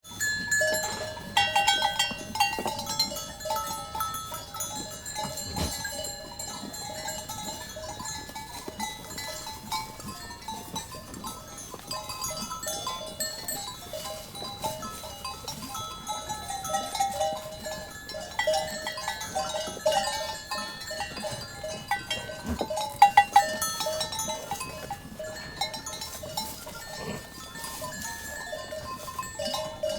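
Bells worn by a grazing flock of sheep clanking and ringing irregularly and continuously, many bells overlapping, with a few sharper, louder clangs about 23 seconds in.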